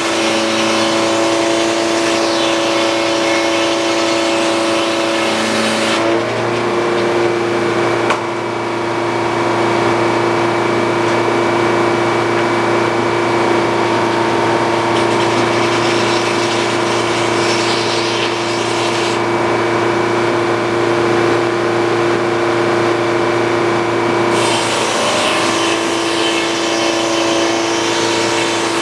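Sawmill's engine running steadily with a constant pitched hum while boards are sawn. A brighter hiss over it drops away about six seconds in and comes back near the end.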